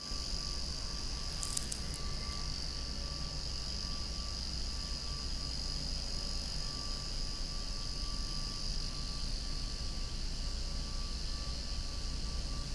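Cicadas calling in a continuous, high, steady drone, loud enough to be almost noisy. A low steady rumble runs underneath, and a brief crackle comes about a second and a half in.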